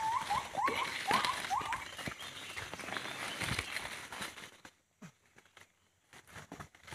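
Footsteps and rustling through forest leaf litter and undergrowth. In the first two seconds there is a quick run of about five short, high animal calls, each rising then falling. About two-thirds of the way in it goes nearly quiet.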